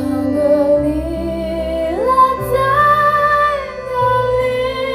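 A woman sings a slow Mandarin pop line over instrumental backing. About two seconds in, her voice slides up to a long high note, then drops back down to the lower phrase.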